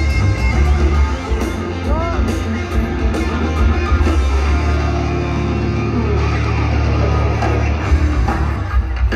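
Live hard-rock band playing loud in an arena: electric guitar lead with bent notes over bass and drums.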